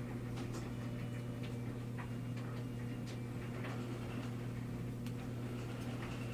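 Small irregular ticks and clicks of a screwdriver working the screws and plastic casing of a digital camera, over a steady low hum.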